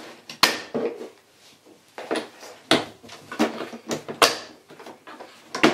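Hard plastic roof of a Little Tikes Tikes Place playset being forced down onto its plastic pillars: a string of sharp, really loud cracks and knocks, about eight in all, as the parts snap together.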